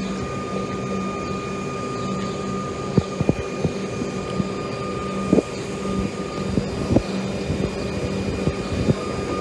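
Electric suburban train at the platform: a steady electrical hum with a high whine over it, and scattered clicks and knocks.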